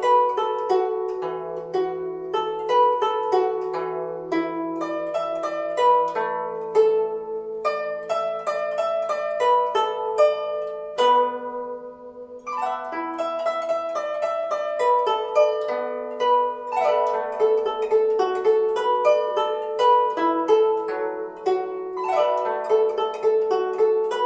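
Guzheng (Chinese plucked zither) playing quick runs of plucked notes over long-ringing low notes. About halfway through, the playing thins to a few ringing notes for a moment, then the runs pick up again.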